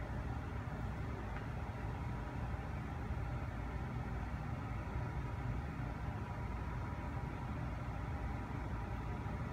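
Steady low background rumble with a faint hum, unchanging throughout and with no distinct clicks or events.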